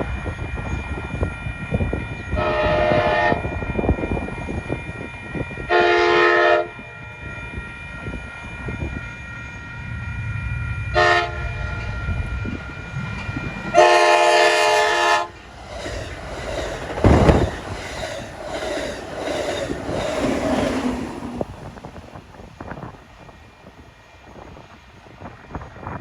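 Locomotive horn sounding the grade-crossing signal, two long blasts, a short one and a final long one, as a train approaches. The train then passes with a rumble and a run of rhythmic wheel clatter that fades away.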